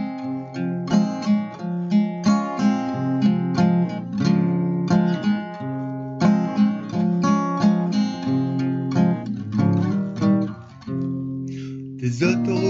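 Acoustic guitar strumming chords in a steady rhythm, a song's instrumental passage without vocals. The playing thins out briefly about eleven seconds in, then comes back in full.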